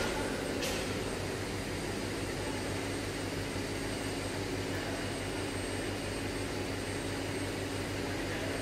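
Steady hum and fan-like whir of the Omicron test set running during current injection into a current transformer, with one light click about half a second in.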